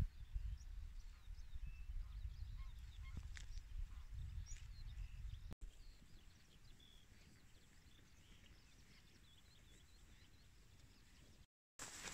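Faint honking calls of a flock of swans flying overhead, scattered short calls over a low wind rumble on the microphone that drops away about halfway through.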